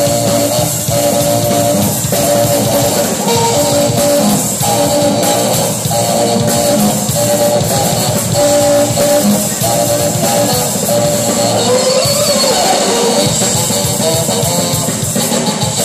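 Saxophone and rock drum kit playing loud punk rock live: the sax plays a riff of short, repeated notes over the drums. About twelve seconds in, the sax bends its pitch up and down.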